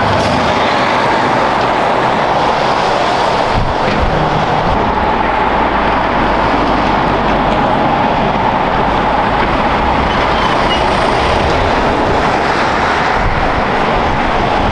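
Heavy trucks and cars passing on a highway: a steady mix of diesel engine noise and tyre roar on the road surface.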